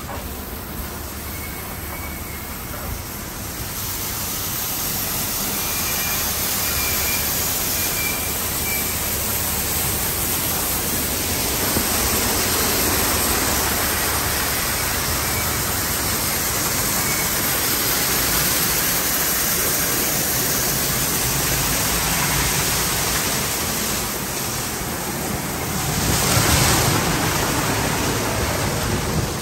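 Water from car wash spray arches and a water curtain pouring onto a car, a steady rushing hiss that grows louder about four seconds in and swells briefly near the end.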